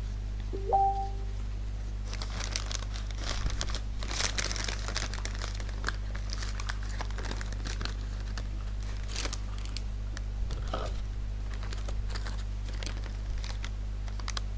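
Thin plastic bag crinkling and rustling in irregular crackles as hands dig into it. About a second in there is a short two-note electronic beep, low then higher, over a steady low hum.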